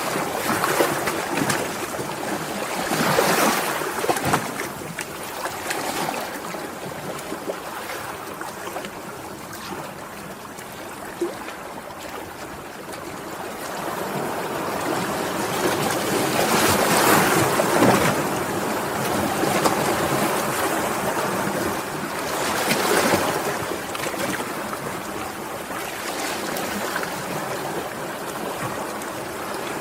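Sea waves washing in and drawing back, a steady surf noise that swells every several seconds, with the biggest surge about seventeen seconds in.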